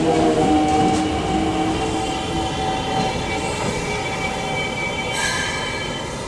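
Toei 5300 series electric commuter train braking as it pulls into a station. The traction motors whine, falling in pitch as it slows, over wheel rumble and a high squeal from the wheels and brakes, with a brief sharper squeal about five seconds in.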